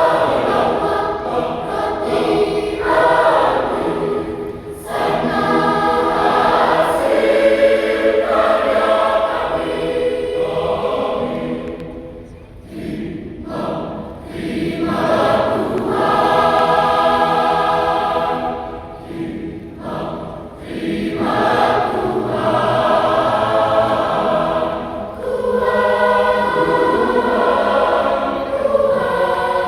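Church choir singing a hymn in Indonesian, in long phrases with short breaks about twelve and twenty seconds in.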